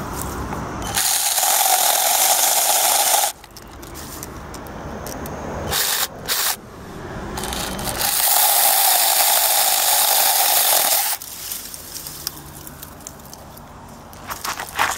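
24 V cordless mini chainsaw with a 4-inch bar run twice against a small tree trunk, each time for about two to three seconds with a steady motor-and-chain whine that stops suddenly.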